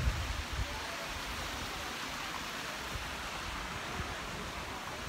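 Steady, even rushing of running water, like a stream or waterfall.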